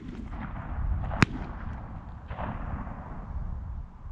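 A single sharp gunshot about a second in, over steady wind noise on the microphone.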